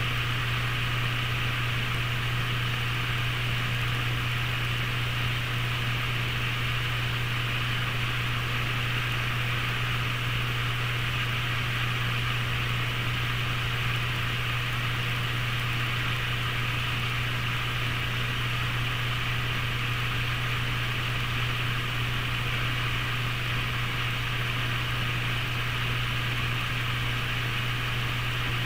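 Waterfall: a steady, unchanging rush of falling water with a strong low rumble underneath.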